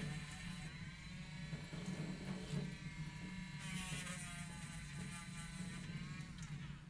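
Small electric motor whirring with a wavering pitch that rises and dips as if under changing load, then winds down and stops near the end.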